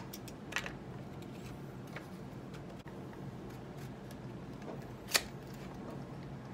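A few light clicks and taps as the metal main plate and plastic parts of a 22 Designs Lynx telemark binding are handled and fitted together by hand, with one sharper click about five seconds in.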